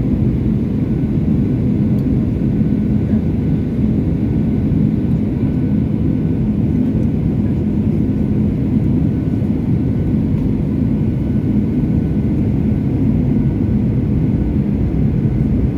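Boeing 737-800 cabin noise: a steady, loud low roar of the CFM56 engines and airflow during the approach, with no change in pitch or level.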